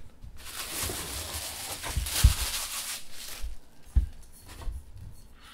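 Paper wrapping rustling and crinkling for about three seconds as an enamel mug is unwrapped by hand in a cardboard box, with a couple of dull knocks, the loudest a little past two seconds and another about four seconds in.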